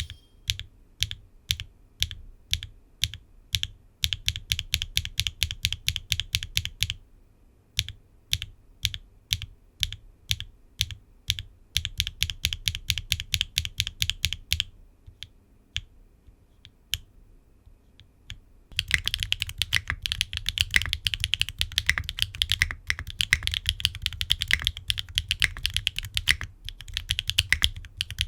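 Mechanical keyboard with HMX Yogrut S linear switches in a gasket-mounted aluminium Qwertykeys Neo65 Core Plus (aluminium plate, no foam, ABS double-shot keycaps) being typed on. Single key presses about twice a second alternate with short runs of quicker presses, and about two-thirds of the way through it breaks into steady fast typing.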